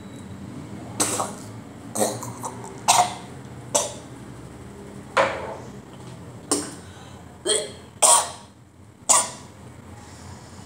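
A man coughing harshly about nine times, short single coughs roughly a second apart, after a mouthful of a homemade spicy-sweet sauce and noodle mix.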